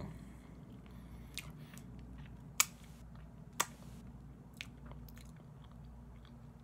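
A person chewing barbecue chicken close to the microphone, with a few sharp mouth clicks; the loudest comes about two and a half seconds in.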